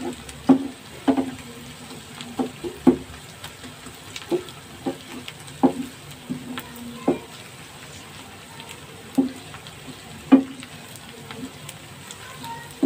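Chopped onions sizzling in hot oil in a nonstick frying pan, stirred with a wooden spatula that knocks and scrapes against the pan at irregular moments.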